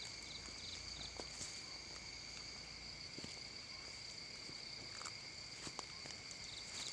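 Steady insect chorus of crickets, two continuous high-pitched trills, with a short burst of rapid chirps near the end. A few faint clicks and rustles sound over it.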